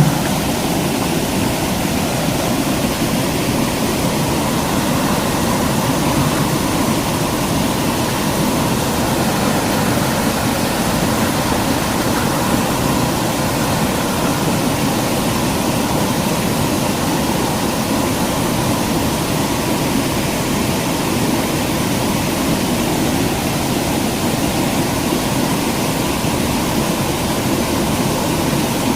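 Running water of a stream, a steady loud rushing without pauses or distinct events.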